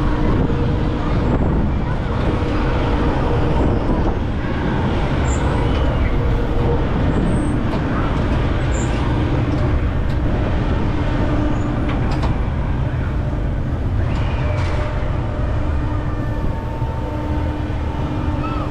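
Wind rushing over the camera microphone as a spinning Superstar amusement ride whirls its rider around, with a faint steady hum underneath.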